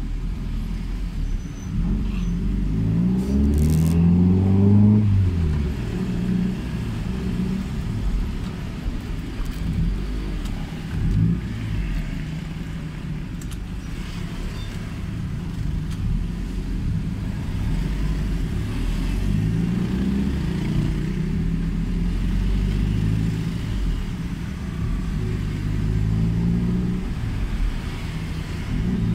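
Toyota Celica ST205's turbocharged four-cylinder engine and exhaust heard from inside the cabin while driving in slow traffic, the exhaust freshly repaired. The engine note climbs as the car pulls away a few seconds in, settles back to a low drone, and climbs again twice in the second half.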